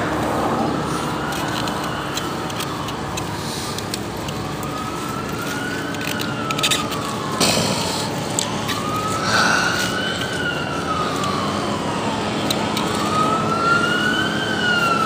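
Emergency vehicle siren wailing, its pitch rising and falling slowly about every four seconds, over a steady background rush.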